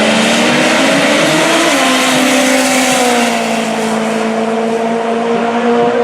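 Drag race cars running at full throttle down the strip. Engine pitch climbs for about two seconds, drops sharply at a gear change, then holds nearly steady.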